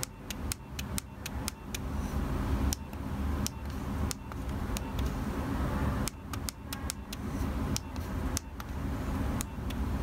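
Short, sharp clicks in irregular clusters as the Nokia 3300b's navigation key is pressed repeatedly to scroll through menus, over a steady low background rumble.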